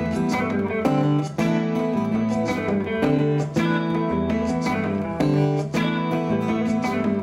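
Live band music: a guitar-led instrumental passage with a steady beat between sung lines of a South African pop song.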